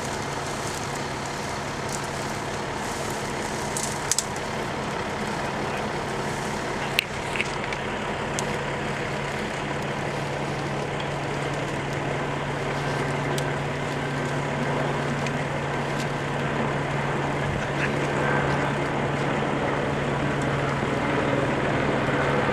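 Steady low engine drone, with a few sharp clicks about 4 and 7 seconds in; the drone grows slightly louder over the second half.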